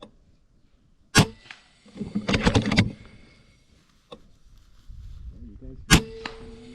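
FX air rifle firing twice, two sharp cracks about five seconds apart, the first the louder. Between them, about a second after the first shot, comes a short burst of louder, rough noise.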